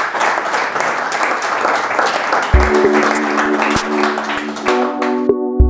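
Audience applauding, joined about halfway through by outro music with sustained chords and deep drum hits; the applause fades out near the end.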